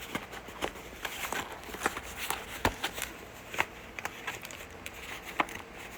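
Light, irregular clicks and knocks of hands handling and trying to close a plastic package.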